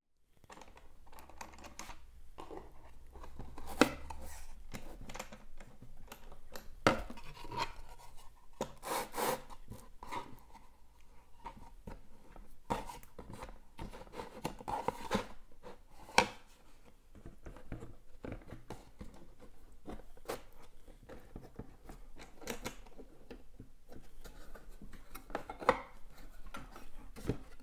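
Wood rubbing and scraping as a small painted panel is fitted into an adjustable plywood panel holder and its sliding stays are pushed against the panel, with a few sharp knocks along the way.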